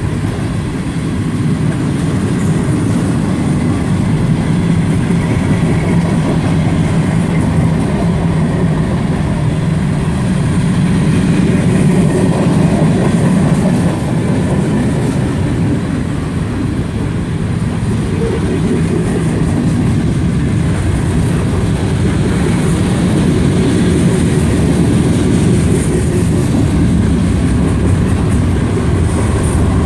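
Freight cars (tank cars, a boxcar and a lumber flatcar) rolling past close by, steel wheels running on the rails in a loud, steady low rumble.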